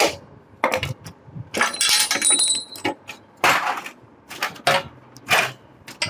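Metal clinks and clanks of a wrench working the 12 mm nuts on a Honda CG125's silencer bracket, an irregular run of sharp knocks with a brief ringing chink about two seconds in.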